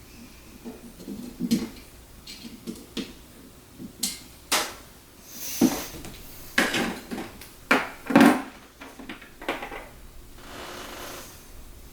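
Hands handling hard objects on a work surface: a run of sharp clicks and knocks, busiest in the middle, with short rustles of packaging between them.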